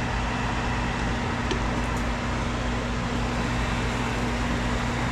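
Steady whir of a fan running with a constant low hum, and a couple of faint ticks about a second and a half in.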